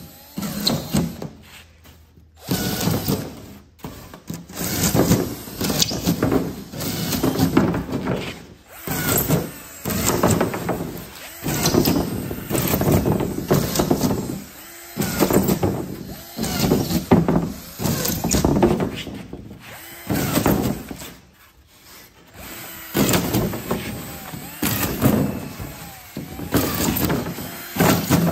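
Cordless drill boring a series of holes through pink foam insulation board: one short whirring burst per hole, roughly one every one to two seconds, with short breaks between holes.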